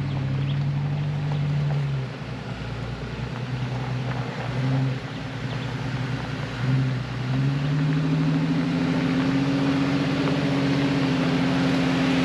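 Jeep Wrangler engine pulling the vehicle slowly up a rutted dirt trail: steady revs at first, a dip about two seconds in, then the revs climb again from about seven seconds and hold higher.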